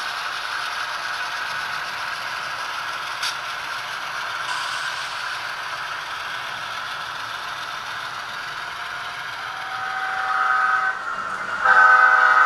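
HO-scale model freight train rolling past, a steady mechanical rattle of wheels and running gear on the track. A sound-equipped model locomotive's horn, several notes together, sounds briefly about ten seconds in and again louder near the end.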